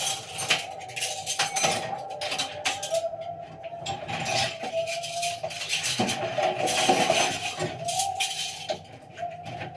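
Dishes and cutlery clinking and knocking against each other and the racks as they are stacked into a dishwasher, many small impacts in quick irregular succession.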